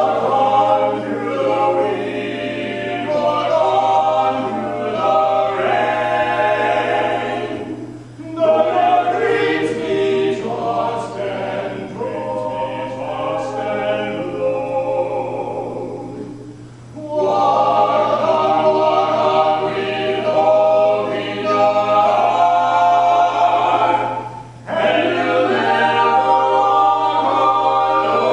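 Male vocal quartet singing a cappella in close harmony, in long phrases broken by short pauses about every eight seconds.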